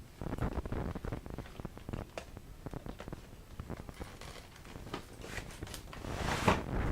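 Cardboard retail packaging being opened and handled by hand: many small ticks and rustles, then a louder scraping slide about five seconds in as the inner box is slid out of its sleeve.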